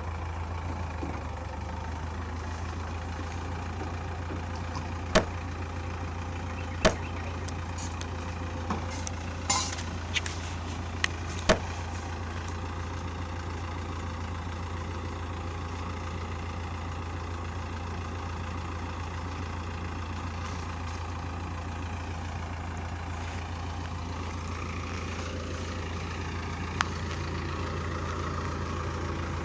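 A heavy machine's engine running steadily at a low, even drone, with a handful of sharp metallic clicks or knocks, most of them in a cluster about five to twelve seconds in and one near the end.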